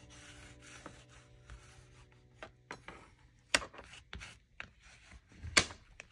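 Paper and card being handled and rubbed by hand: soft rubbing and rustling, with two sharp clicks about three and a half and five and a half seconds in. Faint background music fades out over the first few seconds.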